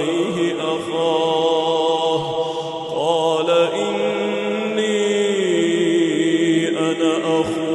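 A solo male voice reciting the Quran in a slow, melodic tajweed style, drawing out long held notes with slow pitch bends. One held note slides down in pitch about five seconds in.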